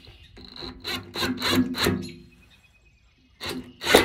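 DeWalt DCF891 half-inch brushless cordless impact wrench driving a bolt on a tractor fender in short trigger bursts: several quick bursts over the first two seconds, a pause, then two more near the end.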